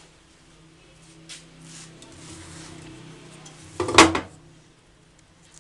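Hollow steel motorcycle fuel tank being handled and turned over, giving one loud clunk about four seconds in as it knocks against the work table, with lighter handling noises before it.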